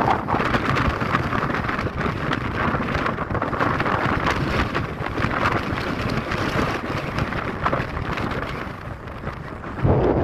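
Mountain wind gusting and buffeting the microphone, a rumbling, crackling rush that rises and falls; it eases a little near the end, then surges back.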